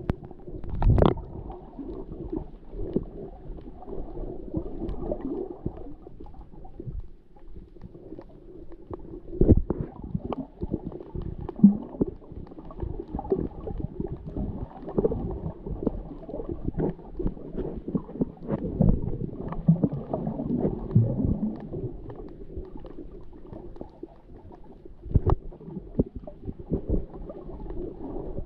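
Muffled underwater water sounds picked up by a submerged camera: steady sloshing and gurgling, with occasional short knocks, the strongest about a second in.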